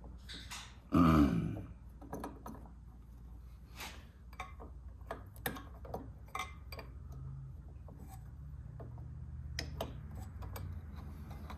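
A loud belch about a second in, falling in pitch and lasting under a second. Scattered light metallic clicks and taps of a wrench follow as nuts come off the carburetor of a 1954 Evinrude 7.5 hp outboard motor.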